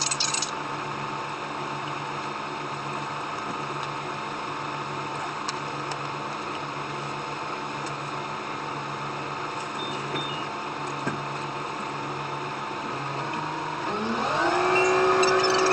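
Diesel train's engine running steadily at idle with a low hum. About fourteen seconds in, the pitch rises and then holds higher and louder as the train powers up to pull away.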